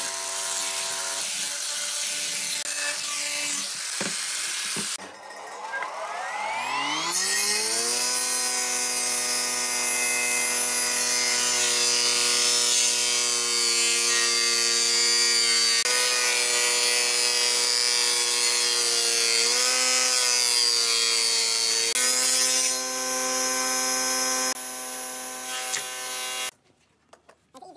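An angle grinder with a sanding disc grinds against pine. Then a jointer's motor spins up with a rising whine and runs steadily, its pitch sagging briefly twice under load as a pine board is fed across the cutter.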